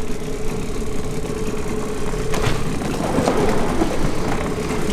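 A 9.8 hp Hidea outboard motor running slowly with a steady hum, and from about halfway through, branches cracking and scraping against the inflatable PVC boat as it pushes through bushes.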